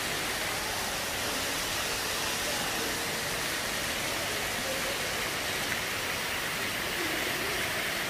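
Water from an artificial rock waterfall spilling over stone ledges and splashing into a pool, a steady, even rush of falling water.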